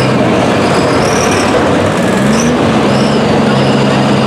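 Diesel pickup truck engine running flat out under load as the truck drags a pulling sled through dirt. The engine pitch sags about two seconds in, then recovers and holds steady.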